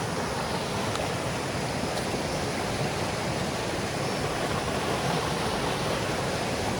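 Shallow natural stream's water rushing steadily.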